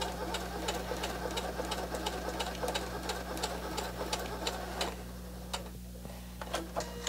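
Singer Heavy Duty 6800C sewing machine stitching through four layers of webbing, each needle stroke a sharp tick at about four a second over the motor's rattle, handling the four layers without stalling. It stops about five seconds in, followed by a few light clicks.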